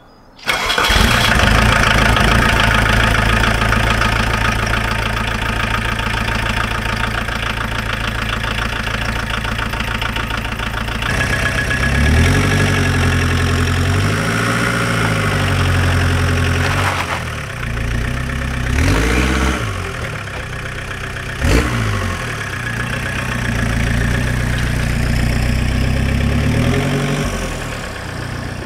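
Volkswagen T3 van engine starting abruptly and running steadily, then revving up and down as the van pulls away and drives off, with a few sharp knocks partway through.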